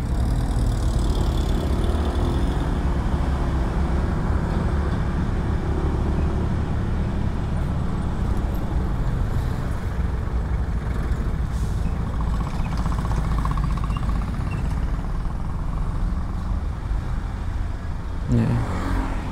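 Bus on the move: steady engine and road noise that holds at an even level, with a voice breaking in near the end.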